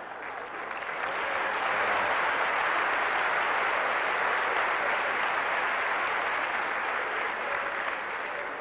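Audience applauding after a punchline, swelling about a second in and tapering off near the end.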